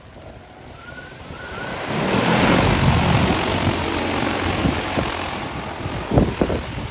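A DJI Agras T40 agricultural spraying drone spools up its rotors and lifts off. The propeller roar swells over the first two seconds and stays loud as the drone climbs. Gusty low thumps come near the end.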